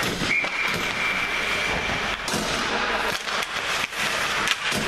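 Ice hockey play at a faceoff: skates scraping the ice and sharp clacks of sticks and puck, several of them in the second half, over a steady rink noise. A thin, steady high tone sounds for about two seconds near the start.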